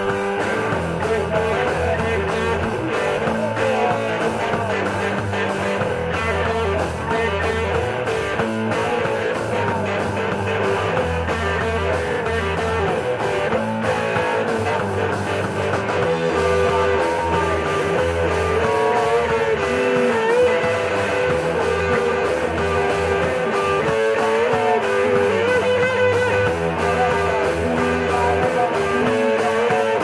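Rock band playing live: electric guitars, electric bass and a drum kit, at a steady loudness throughout.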